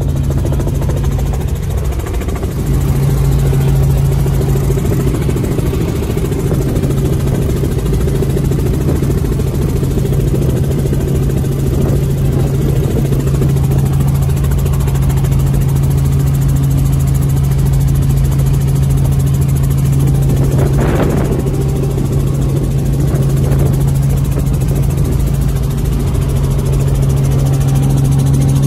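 Helicopter in flight heard from inside the cabin: a loud, steady engine-and-rotor hum with a strong low tone, unchanging throughout.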